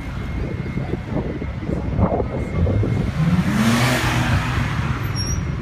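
BMW Z4 coupé accelerating past over steady traffic noise. Its engine note rises, and the sound is loudest as it goes by about four seconds in.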